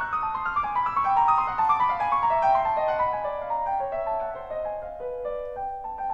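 Background piano music: a run of notes stepping down in pitch, then a new note held near the end.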